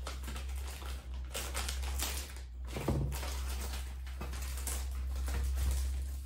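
Packaging rustling and crinkling in irregular bursts as a new cooking pot is unwrapped by hand, over a steady low hum.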